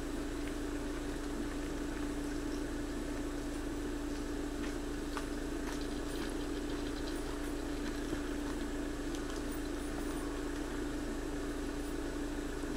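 Steady mechanical hum holding one unchanging low pitch, over a constant hiss.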